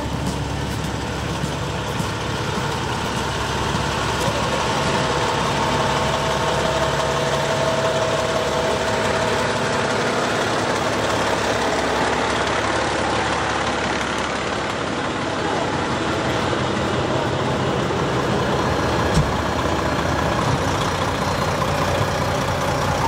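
Fire truck engines idling steadily, a constant low rumble with a faint steady whine over it. A single short knock sounds near the end.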